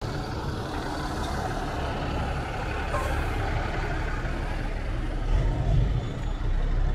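Street traffic dominated by buses' diesel engines running close by, a steady low rumble, with a brief hiss about three seconds in.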